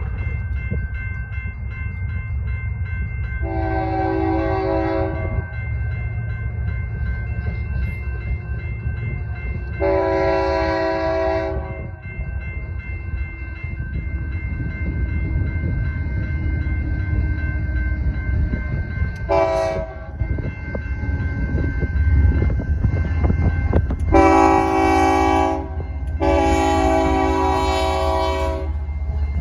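BNSF GE ES44AC locomotive's air horn sounding the grade-crossing signal: two long blasts, a short one, then a final long blast broken once near the end. Crossing bells ring steadily underneath, over the low rumble of the approaching locomotives.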